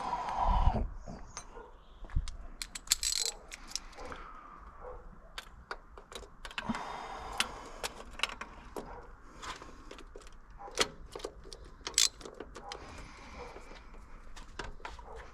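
Metal hand tools and parts clinking, tapping and knocking irregularly, with brief rustling between the clicks.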